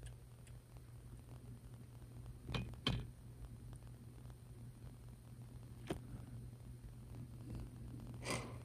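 Small handling sounds from hands working on a plastic scale ship model: two soft clicks close together about two and a half seconds in, another near six seconds and a short rustle near the end, over a faint steady low hum.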